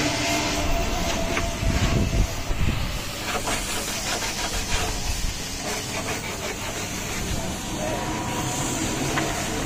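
Knocks, clicks and a few dull thumps from plywood speaker cabinets being handled, clustered in the first half, over a steady hissing background noise.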